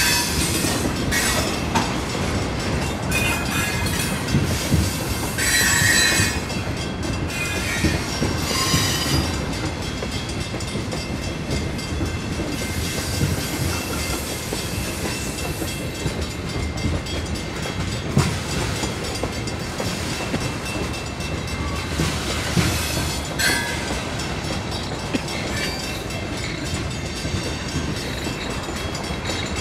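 Freight train's tank cars rolling by on the rails, a steady rumble of wheels on track with brief high-pitched wheel squeals several times.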